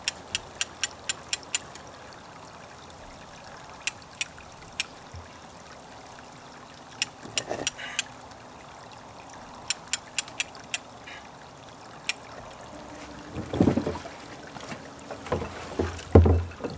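Runs of quick, evenly spaced ratchet clicks, about five a second, from a hand-crank winch being cranked to haul up an empty penstock pipe, over a steady trickle of water. Heavier thumps and rustling near the end.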